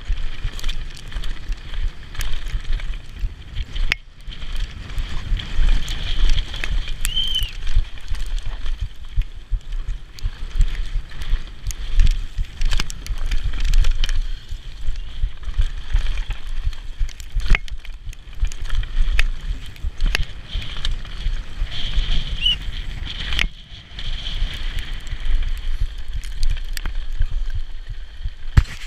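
Specialized Demo downhill mountain bike ridden fast over a rough dry dirt trail: wind rushing over the microphone as a steady low rumble, tyres and bike rattling over the ground, with frequent sharp knocks from impacts over bumps and rocks.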